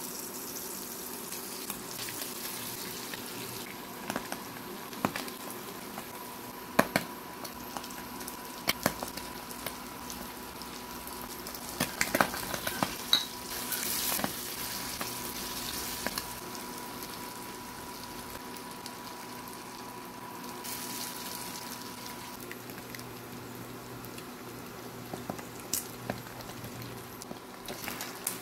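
Smoked fish sisig frying in hot butter and oil in a nonstick pan, a steady sizzle. Sharp taps and scrapes of a silicone spatula stirring against the pan come in clusters through the first half and again near the end.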